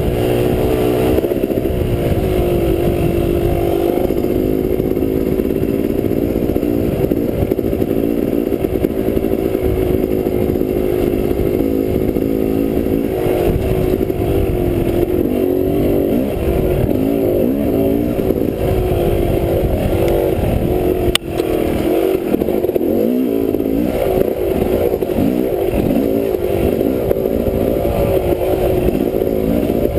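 Dirt bike engine running while the bike is ridden along a trail, its pitch rising and falling with the throttle. A single sharp knock comes about two-thirds of the way through.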